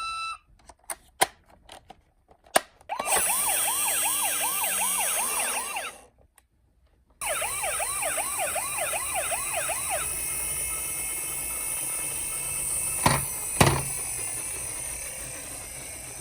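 Toy police car minicar's electronic siren yelping in quick rising sweeps, about three or four a second, in two bursts with a short silent break between them, over a steady high whirring hiss. After the siren stops the whir goes on and slowly fades, with two sharp knocks near the end.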